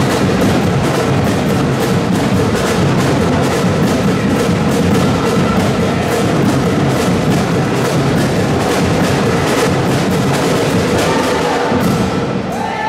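Drums beating a fast, steady rhythm, echoing in a large sports hall; the drumming stops just before the end.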